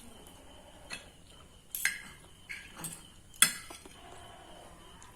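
Cutlery clinking and scraping against a plate of noodles in a handful of short, sharp clicks, the loudest about three and a half seconds in.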